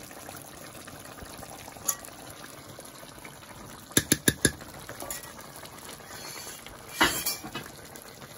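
Metal spoon clinking against cookware as fried raisins are scraped onto rice in an aluminium pot. There is one click near two seconds, a quick run of four clicks about four seconds in, and a louder clatter near seven seconds, over a faint steady hiss.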